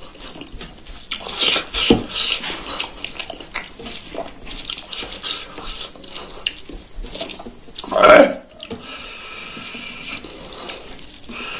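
Close-miked chewing and lip-smacking as smoked pork feet and rice are eaten by hand, a run of short wet clicks and smacks. About eight seconds in, one loud, short, pitched sound stands out above the eating.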